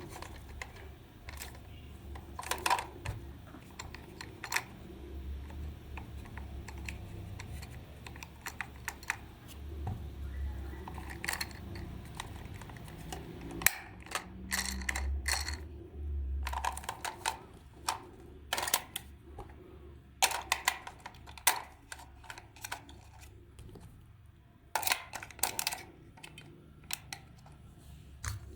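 Irregular light clicks and taps of small hard parts being handled during toy repair, over a faint low hum.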